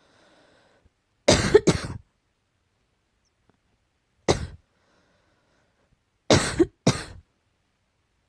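Short coughs in three bouts: a quick pair about a second and a half in, a single cough around four seconds, and another quick pair near the end.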